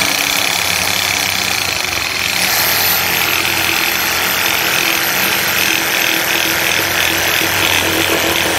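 A Hyper Touch 6.5-amp corded reciprocating saw running at full speed, its blade sawing through a birch limb. The sound is steady and grows harsher about two seconds in as the blade bites into the wood.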